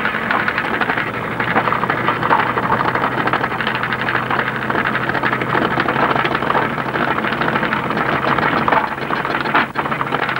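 Yacht's inboard engine running steadily at low revs, a constant low hum under a loud rushing of wind and water as the boat motors slowly in. A brief dip in the noise comes near the end.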